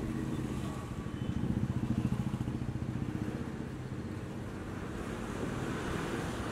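Small motor scooter engine running slowly, a fast steady putter that grows louder about two seconds in, over a steady hiss.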